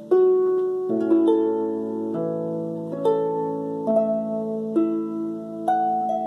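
36-string Dusty Strings lever harp played by hand: plucked melody notes and chords that ring on over a held bass, with a new note about once a second. The bass moves to a new note every second or two.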